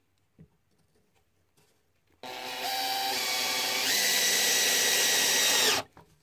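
Cordless drill driving a screw through a metal bracket into wood. The motor whine starts abruptly about two seconds in, rises in speed in two steps, and stops sharply near the end.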